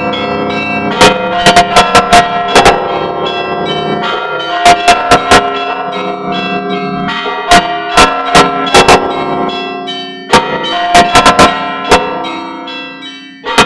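Orthodox church bells ringing: quick strikes of several smaller bells over the lingering ring of larger ones. The bells fall quiet and the ringing dies away briefly near the end, then the strikes start again.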